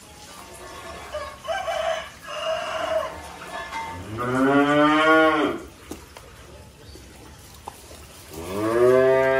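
Young cattle mooing twice: two long, loud moos about four seconds apart, each dropping in pitch as it ends.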